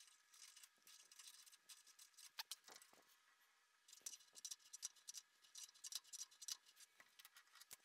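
Near silence, with scattered faint metallic clicks and scrapes from pliers gripping and handling a Morse taper 4 reamer.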